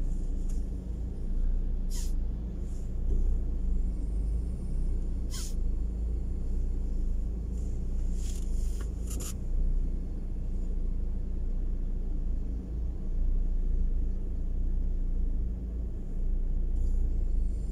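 Steady low rumble inside a car stopped in traffic with its engine idling, with a faint steady hum and a few scattered sharp clicks.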